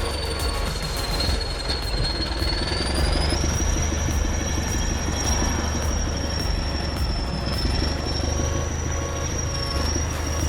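Heavy tracked machine running: a steady diesel rumble under a high, continuous squeal that sags slightly in pitch and then climbs and holds, with light rapid ticking and clanking.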